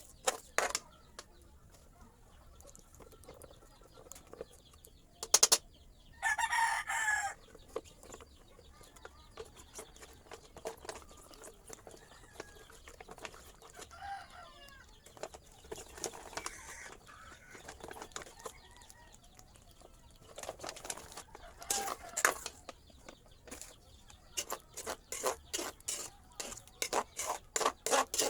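A rooster crows once, about six seconds in, a short pitched call of a second or so. Around it come many short sharp sounds in quick runs, thickest near the end.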